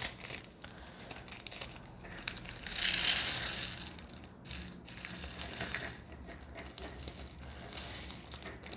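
Small plastic zip bags of diamond painting drills crinkling and rustling as they are handled and opened, loudest about three seconds in, with a few light clicks.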